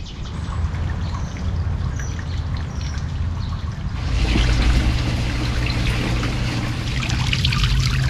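Garden water fountains trickling and splashing; the splashing turns brighter and louder about four seconds in.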